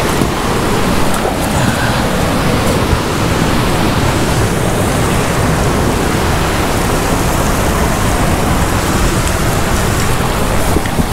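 Ocean surf washing over the rocks below, a steady loud rush.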